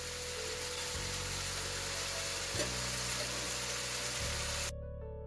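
Sauce sizzling in a hot wok as a steady hiss, which cuts off suddenly near the end. Soft background music plays under it and carries on alone after the cut.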